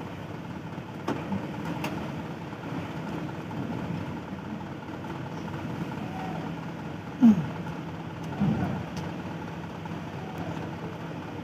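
Heavy diesel engines idling in a steady low drone, from the ferry and the truck waiting in its open bow. Two brief louder sounds break in, a falling one about seven seconds in and another about a second later.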